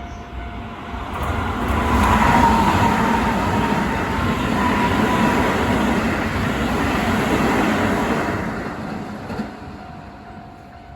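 A Keisei Main Line train passing a level crossing: the rumble and rattle of the cars build about a second in, stay loud for some seven seconds and fade away near the end, with a faint whine falling slightly in pitch. A steady warning tone from the crossing keeps sounding throughout and is left alone as the train fades.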